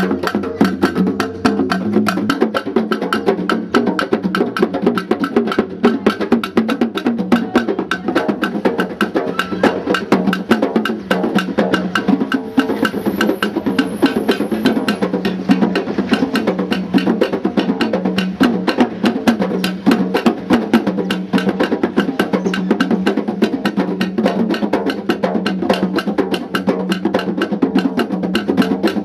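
Kpanlogo hand-drum ensemble playing a fast, dense, steady rhythm, with sharp clicking strokes over the drum tones.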